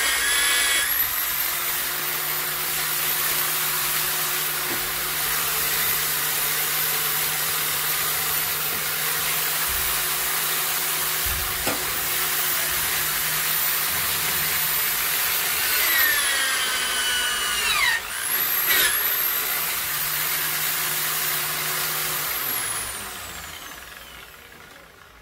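Corded electric drill in a homemade drill-press stand, running at speed and boring through an aluminium pulley at first, with a steady high whine. About two-thirds of the way through, the motor slows with a falling whine and almost stops, then speeds up again. Near the end it winds down to a stop as it is unplugged.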